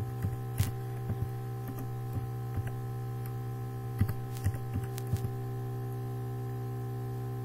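Computer keyboard keys tapped about ten times in an uneven run over the first five seconds, typing a short word, over a steady electrical mains hum.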